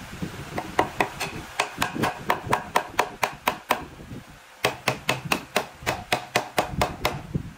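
Steel-headed hammer knocking a half-round wooden panel down into its slot joint on a board, in quick, even strikes about four a second. The strikes come in two runs with a brief pause about halfway through.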